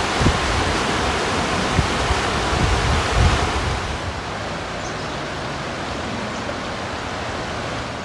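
River rapids rushing steadily, with wind gusting on the microphone in the first few seconds; the rush becomes quieter about halfway through.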